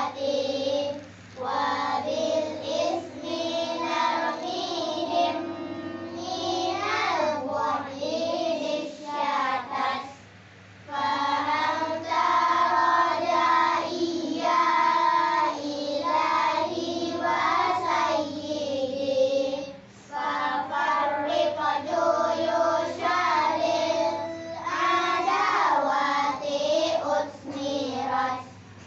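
Group of girls singing an Arabic devotional poem (syair) together, with no instruments heard. The song breaks briefly between lines about 1, 10 and 20 seconds in.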